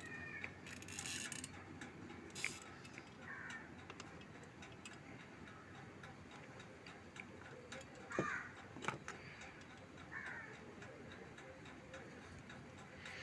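Faint scattered clicks and taps of a sewing machine foot pedal being handled and worked on with tools while it is being opened up, over a low background.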